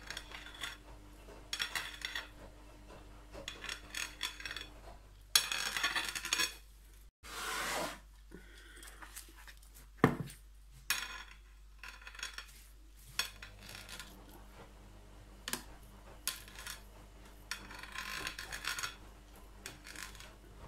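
Spatula spreading and smoothing cream over a layered sponge cake in irregular scraping strokes, the blade now and then scraping the plate, with one sharp knock about ten seconds in.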